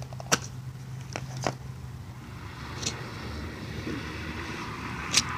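Clear plastic slime container handled close to the phone's microphone: a few sharp clicks and rubbing as fingers grip and turn it, over a steady low hum.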